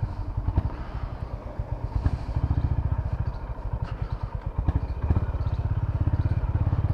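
Honda CB350RS's 350 cc air-cooled single-cylinder engine on the move at low revs, its exhaust pulsing in a fast, even low beat. It grows louder about five seconds in as the throttle opens. A few light clicks sound along the way.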